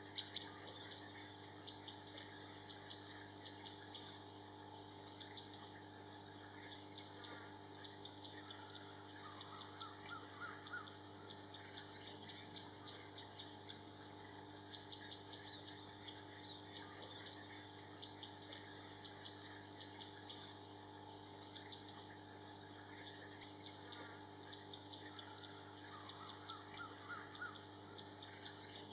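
Bird calls: a short, high rising chirp repeated roughly once a second throughout, with brief lower twittering runs about ten seconds in and again near the end.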